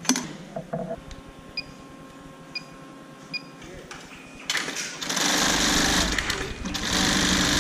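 Juki computer-controlled pattern sewing machine starting up about halfway through and running steadily at speed, a loud dense mechanical clatter with a low hum. Before that it is fairly quiet, with a few small clicks and three short beeps.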